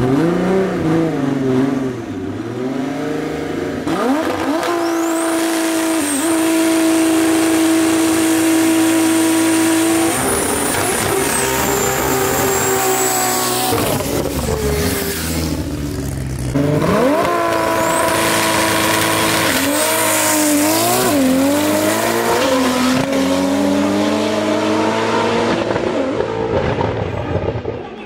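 Toyota Cressida's 2JZ straight-six doing a burnout to heat the rear tyres before a drag run: the engine is held at a steady high rpm for several seconds while the tyres spin and squeal. After that the revs rise and fall again and again.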